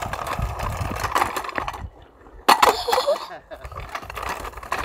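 Stunt scooter wheels rolling and rattling over block paving. They go quiet for a moment, then a sharp clack hits about two and a half seconds in, and the rolling starts again.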